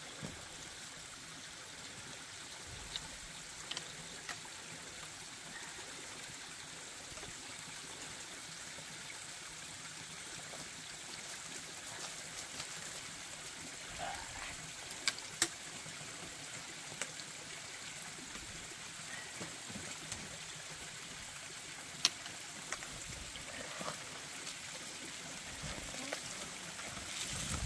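Steady rush of running water from a small stream, with a few sharp clicks of trekking poles and boots on rocky ground.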